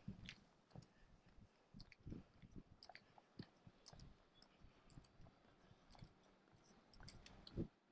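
Near silence with faint clicks and soft low thumps at an uneven pace, from a walking body-worn camera: footfalls and the mount or case knocking.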